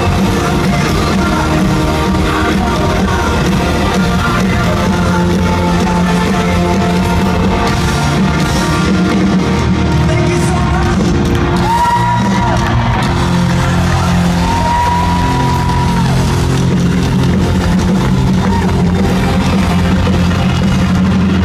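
Live band playing loud amplified rock-style worship music with singing, heard from the crowd. Two long held high notes come around the middle.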